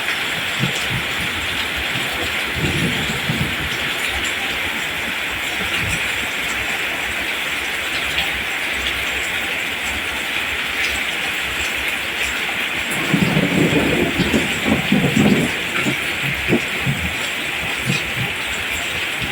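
Steady rain falling on rice plants, an even hiss with scattered low drops. About two-thirds of the way through comes a few seconds of heavier, lower rumbling.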